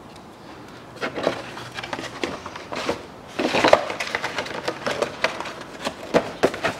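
Plastic air filter housing lid of a Hyundai Palisade being set down and pressed shut: an uneven run of plastic clicks, knocks and rattles, busiest about three and a half seconds in.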